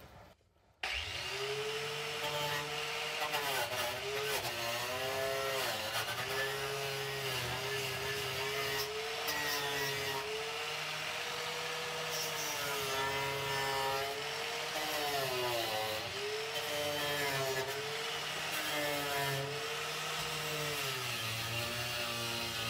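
Handheld electric power tool with a wire brush or stripping disc scouring old, flaking undercoating off a car's steel underbody. It starts about a second in and runs steadily with a scratchy scrubbing sound. Its motor pitch dips again and again as it is pressed against the metal, then recovers.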